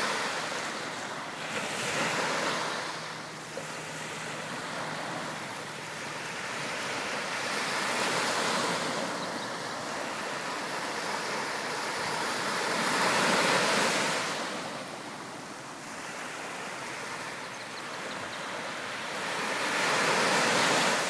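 Small surf breaking and washing up a sandy beach. The rushing water swells and fades every few seconds, loudest about two-thirds of the way in and near the end.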